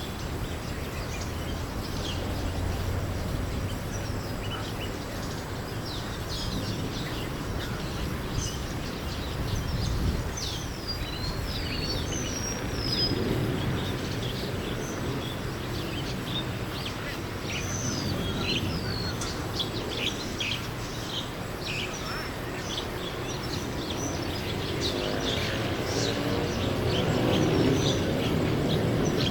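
Many birds chirping and twittering in the treetops, a dense run of short overlapping chirps and quick whistled glides, over a low steady background rumble. It is the evening chorus that the uploader takes for birds coming back to roost.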